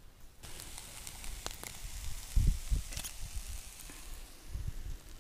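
Meat sizzling in a frying pan over a wood campfire, a steady hiss with scattered crackles from the burning wood. A few dull low thumps come about halfway through and again near the end.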